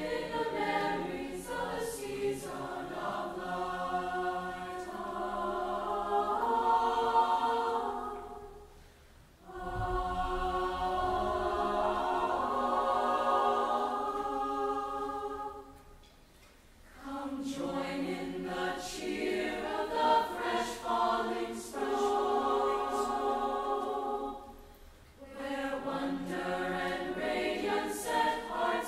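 Large high-school mixed choir singing in long phrases, with three brief pauses between phrases.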